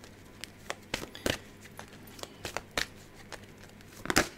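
Oracle cards being shuffled and handled: a scatter of irregular soft clicks and flicks, with louder snaps about a second in and again near the end.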